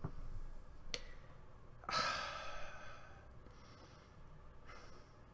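A woman's long, audible sigh starting about two seconds in and fading out, then a fainter breath near the end: a mock exhale, as if trying to calm herself down.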